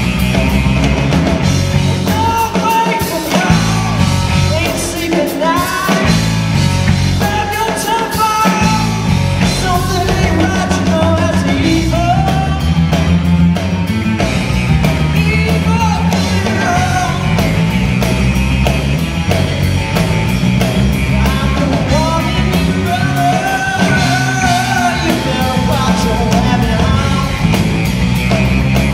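Live rock band playing loud: electric guitar, electric bass and a drum kit, with a bending, wavering lead line riding on top.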